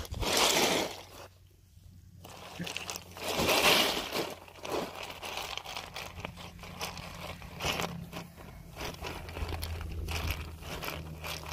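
Ice cubes crunching and clattering as a dog pushes its muzzle through a paddling pool full of ice. The louder bursts of shifting ice come at the start and again about three and a half seconds in.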